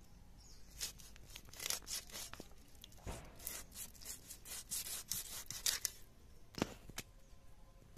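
Chunks of fish scraped against the upright blade of a foot-held bonti to strip the scales: repeated irregular scrapes, several a second, with a couple of sharper clicks near the end.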